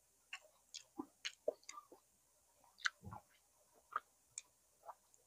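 Close-miked mouth sounds of chewing fatty stewed pig's tail: about a dozen short, irregular clicks and smacks, with a duller thump about three seconds in.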